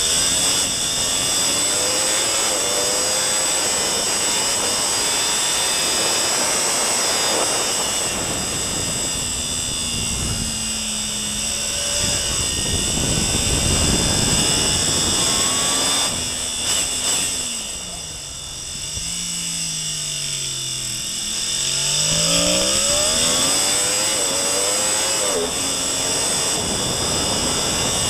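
Sport motorcycle engine at high revs, heard from the onboard camera over rushing wind noise. Its pitch climbs, falls as the bike slows for a corner about two-thirds of the way in, then climbs again as it accelerates out.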